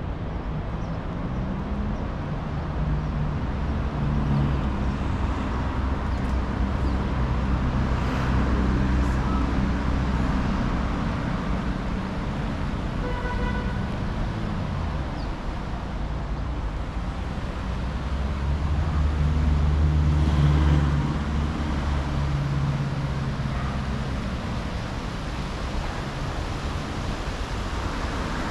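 Road traffic: cars and other motor vehicles passing with a steady engine hum that swells twice as heavier vehicles go by, the second time loudest. A short tooting tone sounds once about 13 seconds in.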